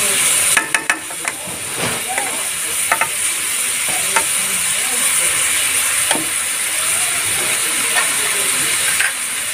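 Chicken livers with onions sizzling in an aluminium pot, stirred with a wooden spoon: a steady frying hiss with scattered knocks and scrapes of the spoon against the pot, several of them close together about a second in.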